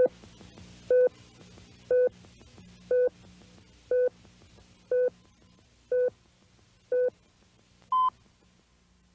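Hospital heart monitor beeping once a second: eight identical beeps, then a single higher-pitched beep, after which the beeping stops.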